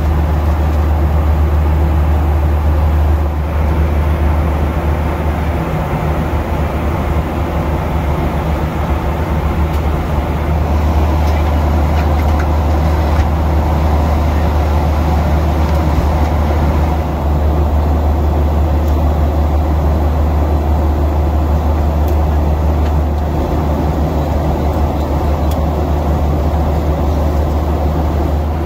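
Steady cabin noise of a Boeing 737-800 in cruise: a deep, even rumble of the engines and the airflow over the fuselage, shifting slightly in tone a few times.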